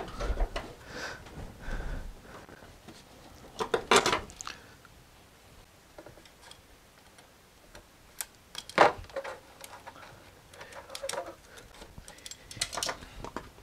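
Hard plastic battery-charger case and hand tools being handled on a workbench: scattered light clicks and knocks, with a sharper knock about four seconds in and another about nine seconds in, and a run of small clicks near the end.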